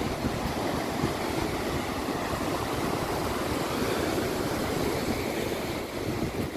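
Rough storm surf breaking and rushing up a sandy beach, a steady roar with wind buffeting the microphone.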